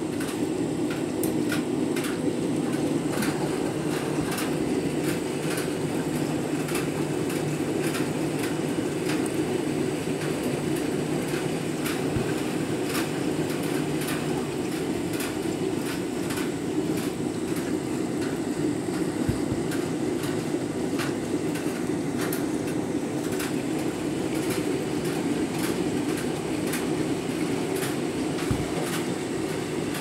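Candy Grand'O Vita front-loading washing machine on a deep rinse, taking in water while the drum turns the wet half load: a steady rumbling wash of water and drum noise with light, irregular ticking.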